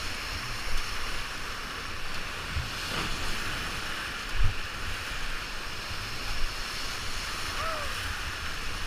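Rushing whitewater of a river rapid, heard from a raft in the middle of it, with wind on the microphone. A few dull low bumps come through, the strongest about four and a half seconds in.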